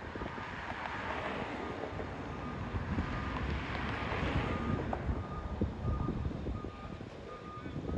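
A vehicle's backup alarm beeping steadily, about every half second, over the low rumble of heavy machinery on a rail construction site.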